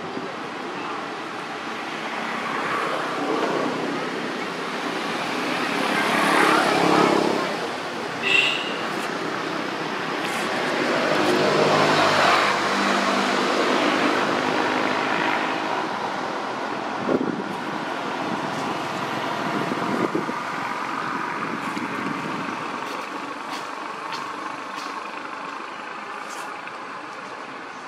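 Road traffic going by, swelling louder twice as vehicles pass, with a short high chirp about eight seconds in.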